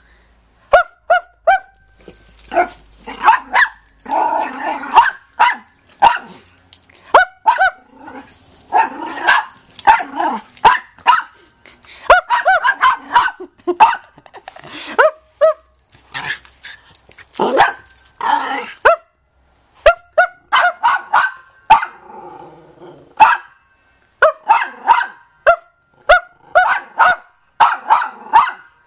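Small Yorkshire terrier barking over and over in quick runs of sharp yaps, with short pauses between runs.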